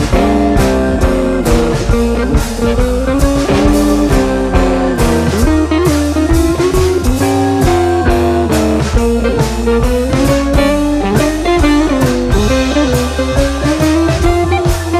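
Background music: a blues-rock tune with a bending electric guitar melody over bass and drums, at a steady beat.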